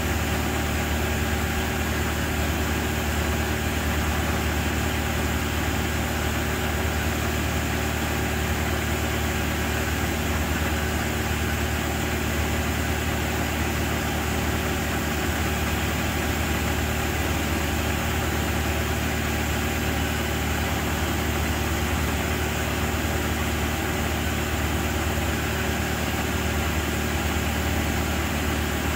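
Genie S-85 telescopic boom lift's engine running at a steady speed while the boom is being operated.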